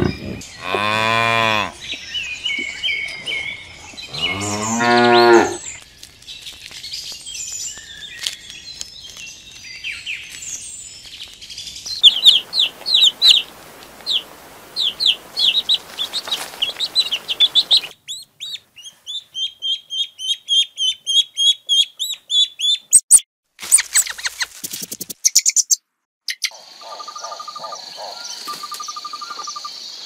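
Water buffalo lowing twice, two long falling calls, then chicks peeping in quick runs of high chirps for about ten seconds. Near the end a steady high trill with regular pulsing chirps comes in.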